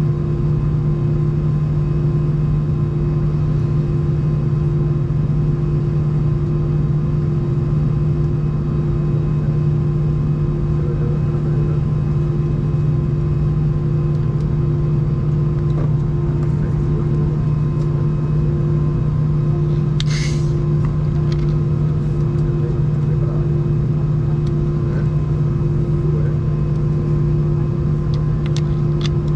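Steady low drone of an Airbus A319's engines idling, heard inside the cabin of the aircraft standing still on the ground, with a constant hum running through it. A brief click partway through.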